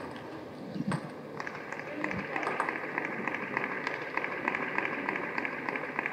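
A table tennis ball tapped twice near the start, then a fast, even patter of light clicks over the hall's background noise from about a second and a half in.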